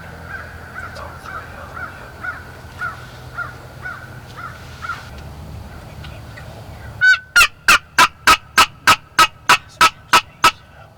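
Wild turkey yelping. First a faint, steady series of yelps about two a second, then about two-thirds of the way in a loud, close run of about a dozen sharp, raspy yelps at roughly three a second.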